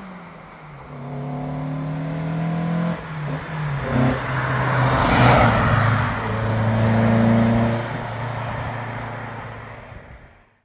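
Alfa Romeo 1750 Berlina's twin-cam four-cylinder engine accelerating as the car approaches. Its note rises in pitch and drops once about three seconds in as it shifts up. The car is loudest as it passes about five seconds in, then fades as it pulls away until the sound cuts off suddenly.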